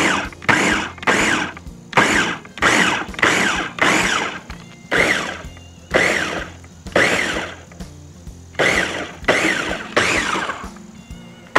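Electric food chopper pulsed over and over, about two short bursts a second with a few brief pauses, the motor whirring up and winding down each time. The blades are chopping wet roasted tomatoes, onions and peppers into salsa.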